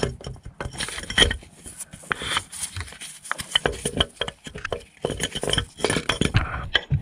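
Irregular metallic clinks and knocks, many in quick succession.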